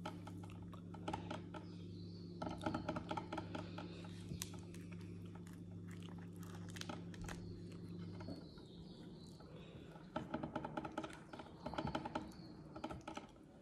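Eating by hand: a crisp flatbread torn apart with the fingers and food picked from the plate and chewed, giving small crackling clicks in several bursts. A steady low hum runs underneath and stops about eight seconds in.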